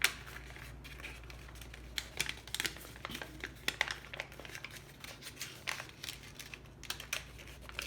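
Paper being folded and creased by hand, with irregular short crisp rustles and crinkles.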